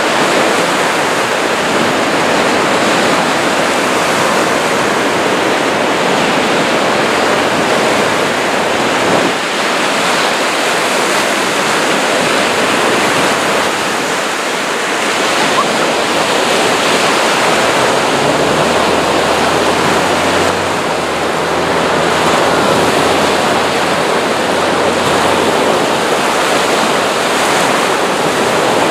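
Steady wash of lake surf, waves breaking on the beach, mixed with wind.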